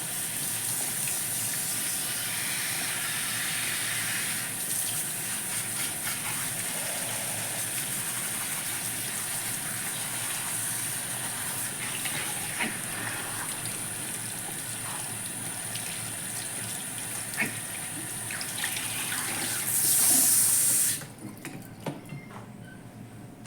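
Salon shampoo-bowl shower head spraying water steadily as the hair is rinsed, a little louder just before it is shut off abruptly about 21 seconds in; a few small clicks follow.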